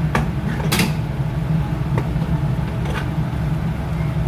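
A steady low engine-like hum with a few sharp knocks or clanks, the loudest just under a second in.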